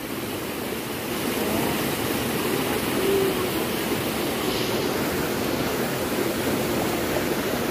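Steady rush of a rocky stream pouring down a small cascade over boulders into a pool.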